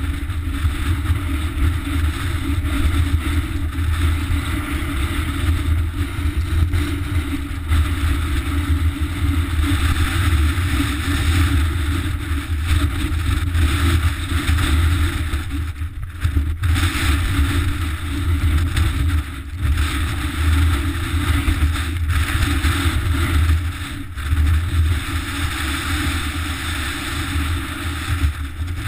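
Wind rumble and buffeting on a GoPro's microphone while a mountain bike rides a loose, rocky track, with a steady hiss and rattle of tyres over stones.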